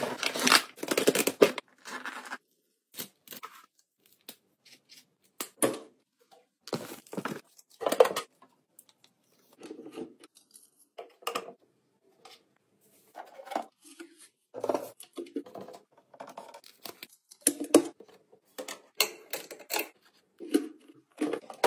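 Unboxing handling sounds: packaging tearing and rustling, with clicks and knocks of a pink plastic toy locker's doors and parts being handled, in short bursts with pauses between.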